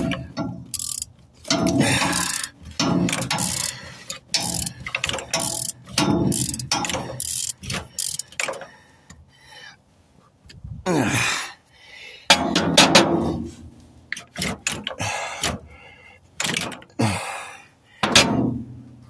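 Hand socket ratchet on a long extension clicking in repeated bursts, with short pauses, as fasteners on a truck's in-tank fuel pump assembly are worked loose.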